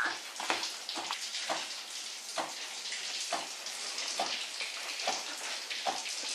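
Water hissing and spattering in a steady stream, with soft knocks about once a second.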